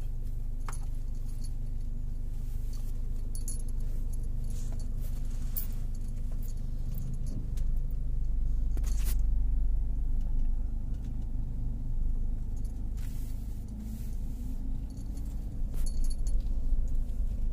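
Steady low rumble of a car driving, heard inside the cabin, swelling for a couple of seconds about halfway through. Light metallic jingles and clicks come and go over it, like keys hanging from the ignition.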